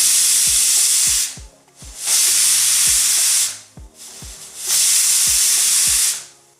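Pressure cooker whistling three times: three loud hissing blasts of escaping steam, each about a second and a half long with short gaps between. The whistles count off the cooking time, three being the count set for this curry.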